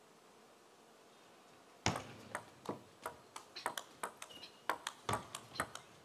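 Table tennis rally: the ball clicking sharply off the rackets and the table, several hits a second at an uneven pace, starting about two seconds in after a near-silent pause.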